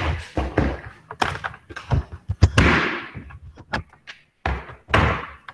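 A string of irregular taps and knocks, with two short rustling hisses in between.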